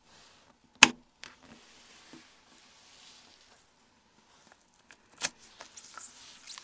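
Sharp plastic clicks, the loudest about a second in and another about five seconds in, with small handling noises and a faint hiss between: a plastic pry tool levering the clips of a Nokia N81's gaming key assembly loose and the opened phone being handled.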